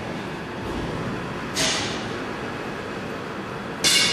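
TR-350RM cross-cut saw running steadily. Twice, about a second and a half in and again near the end, the machine gives a short, sharp, high burst of sound that fades within half a second as the saw goes through its cycle.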